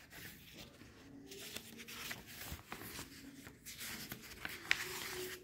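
Paper pages of a textbook rustling as they are handled and turned, with a sharper click a little before the end.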